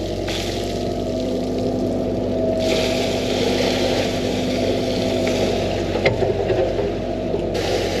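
13-tonne excavator's diesel engine running steadily under working load, heard from inside the cab. A higher rushing noise comes in about two and a half seconds in and drops away near the end.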